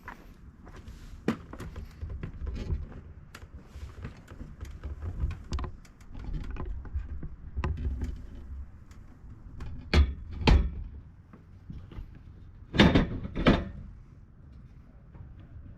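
Irregular knocks and clunks, with two louder pairs of thumps about ten and thirteen seconds in.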